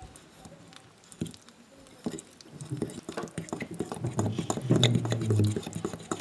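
Spoon stirring thick chocolate cake batter in a bowl: a quick run of scrapes and clicks that starts about two seconds in and grows louder.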